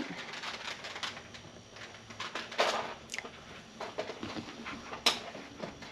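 Light rustling and scattered small clicks of packaging being handled, with a short rustle about two and a half seconds in and a sharp click near the end.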